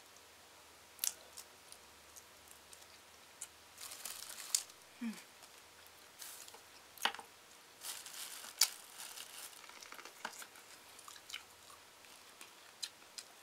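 Boiled shrimp being peeled by hand: irregular small cracks and snaps of shell, wet squishes and the crinkle of a plastic bag, with some quiet chewing.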